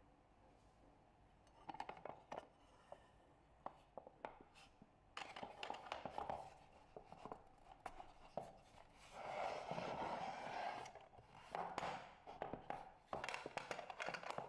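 Hands handling a hinged metal loaf tin on a stone counter. The lid is shut, followed by scattered clicks and stretches of scraping and rubbing as the closed tin is moved and its clasps are worked.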